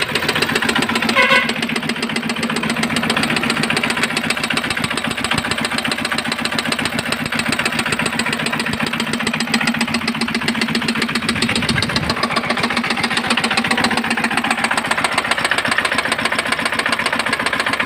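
Small single-cylinder diesel engine running steadily with a fast, even beat and an abnormal sound. The owner traces the sound to a piece of the broken air-cleaner filter that got into the cylinder, between the piston and the head.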